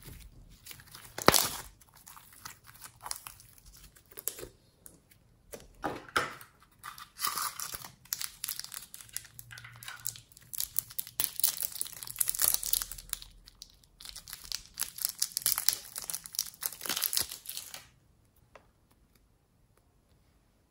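Sticky slime and a clear plastic wrapper handled by hand: a run of crackling, crinkling and tearing noises with sharp pops, the loudest a snap about a second in. It falls quiet for the last few seconds.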